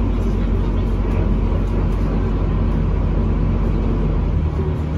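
Passenger boat's engine running with a steady low drone as the boat comes alongside a quay.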